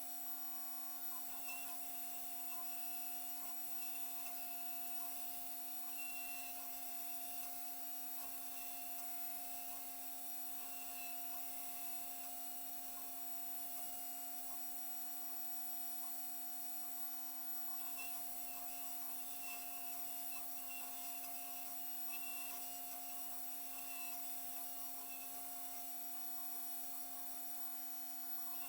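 Custom 5-axis CNC machine milling a two-stroke cylinder sleeve: a steady spindle and motor whine with a light, irregular scratching and ticking of the cutter on the metal.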